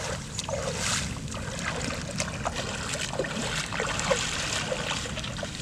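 Water dripping and lightly splashing, with scattered small ticks and rustles among reeds, over a steady low rumble.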